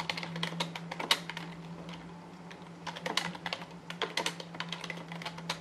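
Typing on a computer keyboard: quick runs of key clicks, with a short lull about two seconds in.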